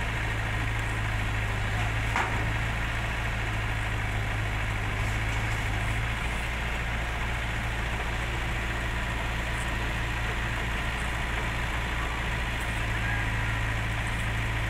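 Diesel engine idling steadily with a low, even hum, and a single light click about two seconds in.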